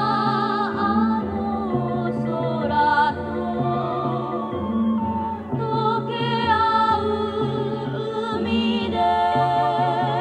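Background music: a high voice singing long held notes with vibrato over a steady instrumental backing.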